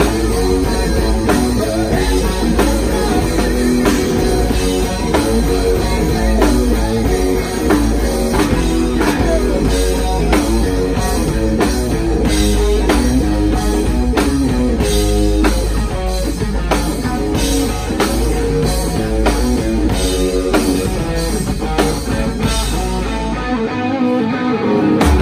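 Live rock band playing an instrumental passage: electric guitars, electric bass and a drum kit hitting a steady beat. Near the end the deep bass drops out.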